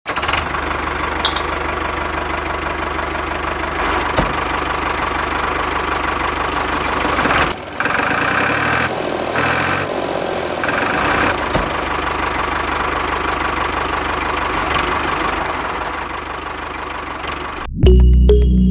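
Homemade toy tractor's engine-like running sound, steady with a regular low knock like an idling engine. Between about 8 and 11 seconds a higher whine cuts in and out over it. Music starts right at the end.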